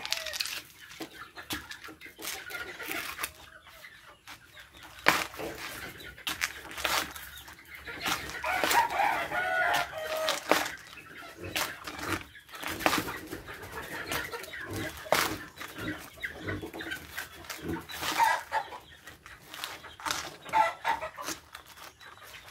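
A chicken clucking, clearest about eight to ten seconds in, over repeated sharp tearing and crackling as a dry coconut husk is pulled apart by hand.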